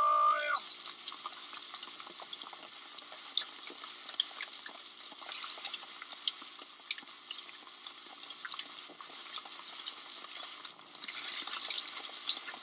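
Hailstones pelting the ground and water in a hailstorm: a dense, irregular patter of sharp ticks and clicks over a steady hiss.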